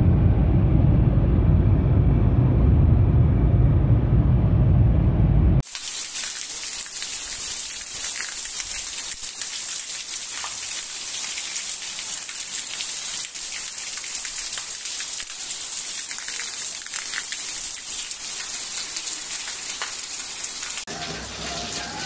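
Steady low rumble of road and wind noise inside a moving car. About five seconds in, it cuts abruptly to the steady hiss of heavy rain falling on tiled roofs and trees. Near the end, it cuts again to water pouring off a roof edge.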